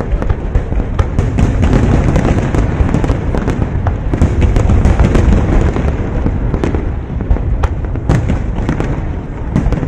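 Fireworks display with many aerial shells bursting in quick succession: overlapping booms and sharp cracks with no pause.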